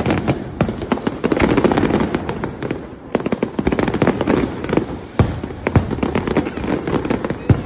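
Aerial fireworks bursting in a dense barrage: a rapid, continuous run of bangs and crackles, with a few heavier reports standing out.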